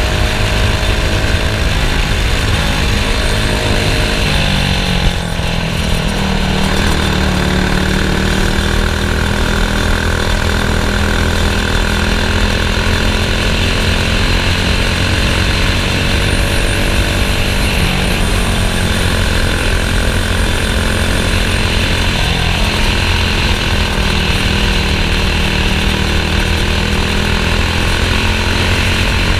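Racing kart engine running hard. Its pitch drops and climbs back up several times, as when the kart lifts off for corners and accelerates out again.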